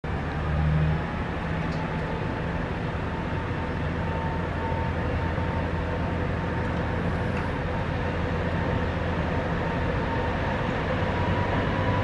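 Diesel engines of a two-car KiHa 40 railcar set running as the train pulls slowly away through the depot: a steady low drone with a faint, even whine above it.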